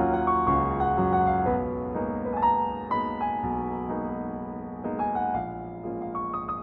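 Background music: a slow piano melody over chords.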